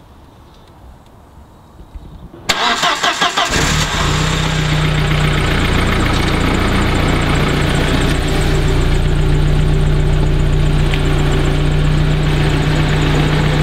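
Audi A4 1.8T's turbocharged four-cylinder engine started: about two and a half seconds in, the starter cranks for about a second, then the engine catches and settles into a steady idle. It idles through an exhaust just repaired with Gun Gum Flexiwrap, which the owner finds airtight.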